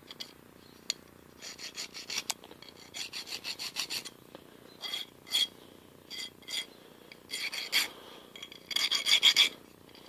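Flat hand file on a small metal part, in short bursts of quick back-and-forth strokes with brief pauses between them; the last burst, near the end, is the loudest.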